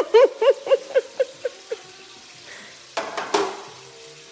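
A person laughing, a run of about eight 'ha' syllables that fades away over roughly two seconds, over fish frying in oil. A short, noisy burst of kitchen clatter comes about three seconds in.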